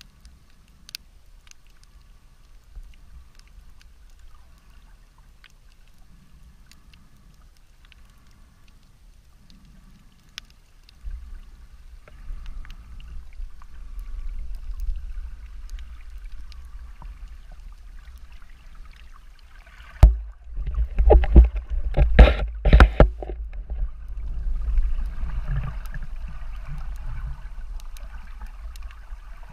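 Underwater ambience picked up by a submerged camera: a low rumble of moving sea water with scattered faint clicks, getting louder about a third of the way in. About two-thirds of the way through comes a quick run of loud knocks.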